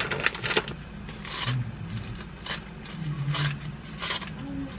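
Kitchen scissors snipping crisp sheets of seasoned laver (gim): several short, crisp cuts about a second apart.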